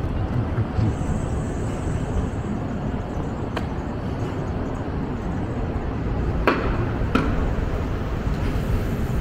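City street ambience: a steady low rumble of road traffic. Three sharp clicks or knocks cut through it, the loudest two close together about two-thirds of the way in.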